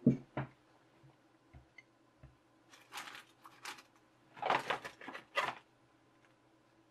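Rummaging out of sight while searching for a small tool: a knock at the start, a few light knocks, then two spells of rustling and scraping about three and about four and a half seconds in.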